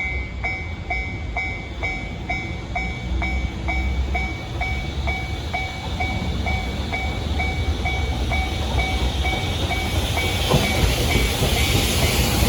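Japanese level-crossing warning bell dinging about twice a second. About ten seconds in, the rumble and hiss of an approaching container freight train on the rails grows louder and begins to drown the bell.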